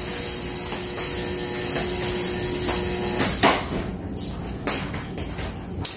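Dishwasher running with a steady hum and wash noise, which cuts off about three seconds in as it is switched off. A few short clicks and knocks follow.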